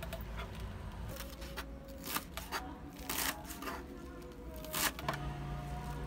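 Kitchen knife cutting napa cabbage leaves on a plastic cutting board: about six short, irregular cutting strokes, the loudest near the end.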